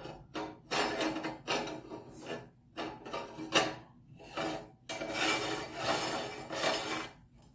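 Threaded retaining ring of a Cabela's Carnivore meat grinder being spun on by hand over the grinding plate and blade, its metal threads rasping against the grinder head in a series of short scraping strokes about every half second, stopping shortly before the end.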